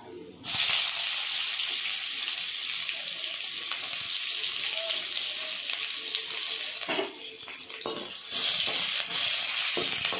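Sliced red onions tipped into hot oil in a steel kadai, setting off a sudden loud sizzle about half a second in that settles into a steady frying hiss. The sizzle drops briefly after about seven seconds, with a few knocks as the onions are stirred, then picks back up.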